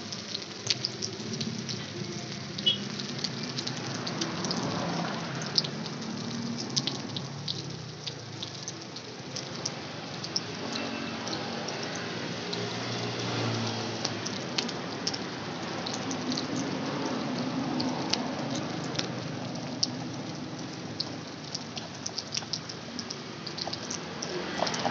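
Hot oil sizzling steadily in a frying pan as cilor (starch balls in egg) fry, with many small crackles and pops throughout.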